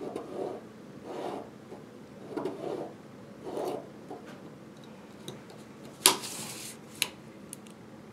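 Pencil rubbing along the edge of a parallel rule on a paper chart in a series of soft strokes over the first four seconds. About six seconds in comes a sharp click with a short rustle, then a second click a second later, as the parallel rule is picked up off the chart.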